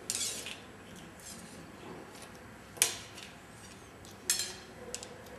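Archery equipment handling between shots: light clicks and rattles of bow and arrow. A short rustle at the start, one sharp loud click nearly three seconds in, then a smaller rattle and a faint click about a second and a half later.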